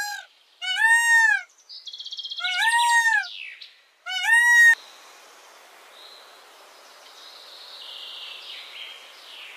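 Peacock giving about four loud wailing calls, each rising and falling in pitch, with a rapid high rattling between the second and third. After about five seconds the calls stop and only a faint steady hiss remains.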